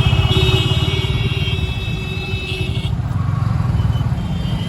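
City street traffic: motorcycle and other vehicle engines running in a dense, steady rumble. A steady high-pitched tone sounds over it for about the first three seconds and cuts off sharply.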